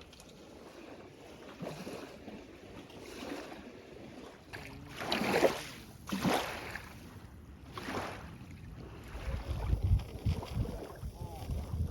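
Small waves washing on a lakeshore, with three louder washes in the middle. Wind buffets the microphone with low rumbles in the last few seconds.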